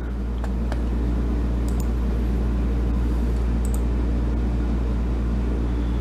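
A steady low hum with a faint hiss behind it, the constant background noise of a small room, with a few faint clicks.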